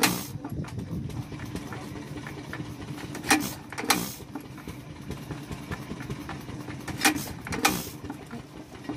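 Vintage Japanese BEST kerosene stationary engine (Sekiya Noki) running slowly. It fires two sharp bangs about half a second apart roughly every three and a half seconds and coasts on its flywheels in between.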